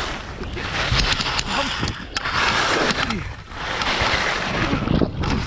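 Skis scraping and hissing through chopped-up snow, swelling and fading about every second or so. Wind rumbles low on the microphone underneath.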